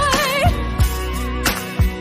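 Background pop/R&B song with a steady beat: a sung, wavering note in the first half second, then the drums and bass carry on without vocals.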